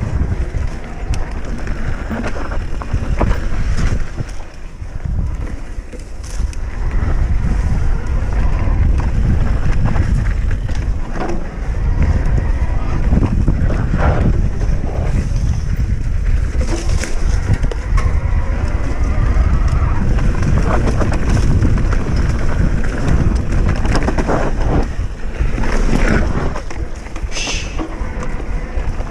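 Wind buffeting a ride-mounted camera microphone over the rumble of an enduro mountain bike rolling down a rough trail, with frequent rattles and clicks from the bike.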